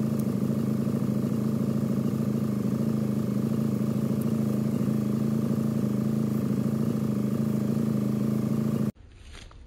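Engine running steadily at an even idle, a low constant hum that cuts off abruptly near the end.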